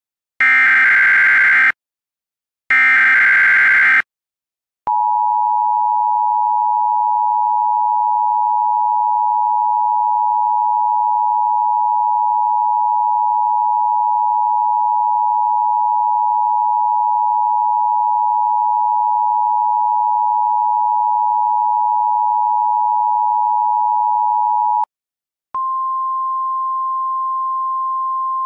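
Emergency Alert System test: the last two screeching data bursts of the SAME header, then the steady two-tone attention signal for about twenty seconds. After a short gap, a single higher steady tone begins and runs on.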